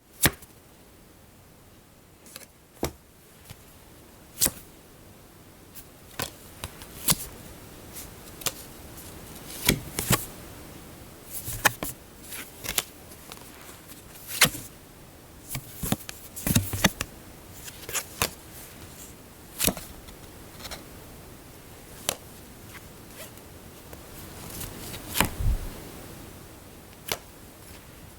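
Playing cards being drawn from a deck one at a time: irregular crisp snaps and short slides of card stock, about one every second or two, some coming in quick clusters, with a duller knock near the end.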